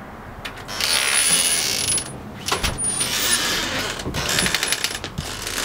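A house front door and its glass storm door being opened: the latch and handle click and the door rattles, in several bursts of clicking and scraping.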